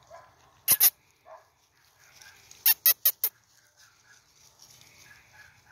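Dog barking: two short sharp barks about a second in, then four more in quick succession near the middle.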